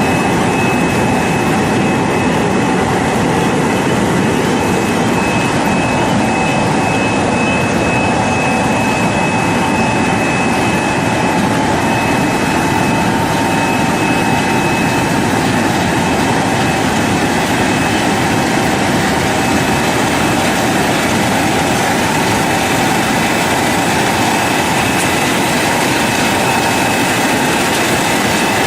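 Industrial air-bubble washing machine running: a steady, loud mechanical noise with a few constant whining tones on top.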